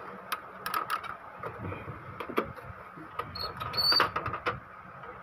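Plastic knocks and clicks as an Epson L3110 inkjet printer's casing is lifted and tilted by hand, with a few brief high squeaks about three to four seconds in.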